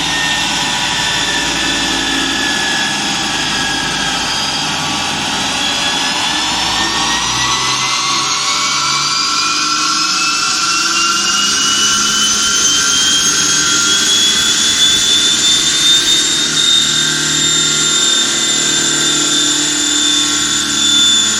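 Mercedes E350 CDI's V6 diesel under hard acceleration on a free-flowing exhaust, with a high turbo-like whine that rises steadily for several seconds and then holds level.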